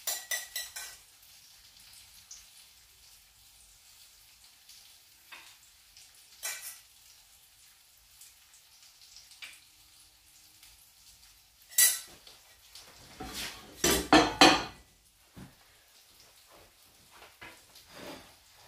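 A metal spoon clinking against a small steel saucepan and ring mould as peas are spooned out, then metal pans clattering on the gas hob's grates. The clinks come in a quick run at the start and singly after that, and the loudest clatter comes about two thirds of the way through.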